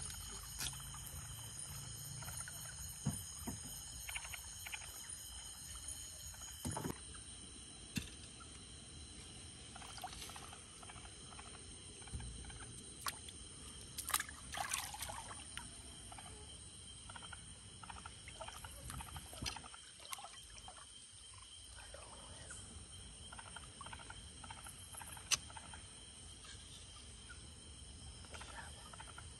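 Water splashing and trickling, with scattered sharp knocks, over a steady high-pitched chorus of night insects. The knocks and splashes are from working by hand in shallow water from a wooden boat.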